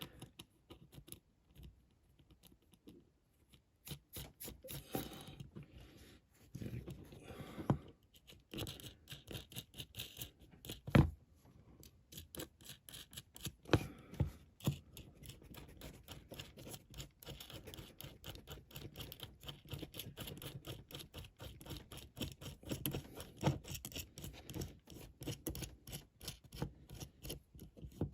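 Tiny metal nuts being screwed by hand onto small bolts in a diecast model car: a run of fine, irregular scratching and clicking from the small metal parts, with two sharper knocks about halfway through.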